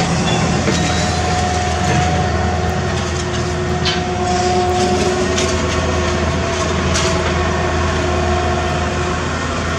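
Dump truck's diesel engine running in a steady low rumble as the truck moves slowly past, with some light rattling and clicks over it.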